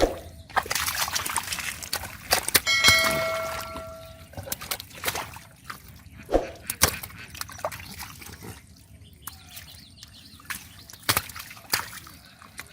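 Shallow muddy river water sloshing and splashing in a series of sudden splashes, as hands work through it. About three seconds in, a brief steady tone is held for about a second.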